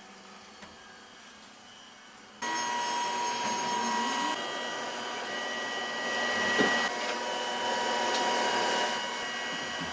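Gear-cutting machine running with a steady whirring whine. It comes in suddenly about two and a half seconds in, after a faint hiss.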